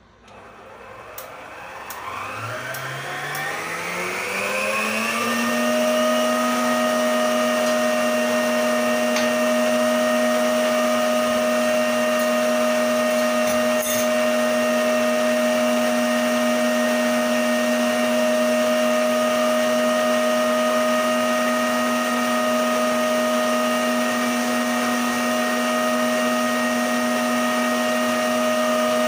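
Emsan stand mixer's motor spinning up to high speed, its pitch rising for about five seconds, then running with a steady whine as the wire whisk beats egg yolks and sugar in a steel bowl.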